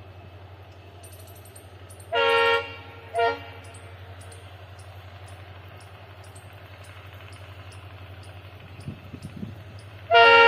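WDP4D diesel locomotive's horn sounding from an approaching train: a blast about two seconds in, a short toot just after, and a louder blast near the end. A steady low hum runs underneath.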